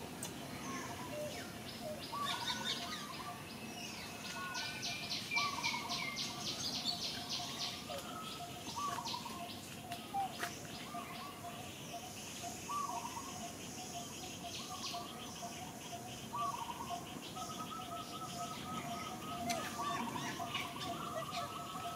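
Outdoor birds chirping and calling: a short call repeated every second or two, a fast high trill in the first third, and a rapid pulsed call near the end, over a thin steady background tone.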